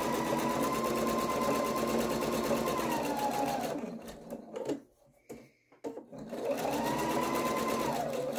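Computerized sewing machine stitching at a steady speed, a motor whine with rapid needle ticks. It slows to a stop a little over three seconds in while the fabric strip is pivoted at the corner, then starts up again about two and a half seconds later.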